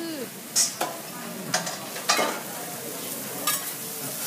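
Chicken, meat, lobster and mushrooms sizzling on a teppanyaki griddle in a steady hiss, with several sharp clicks and scrapes of a metal spatula on the hot plate.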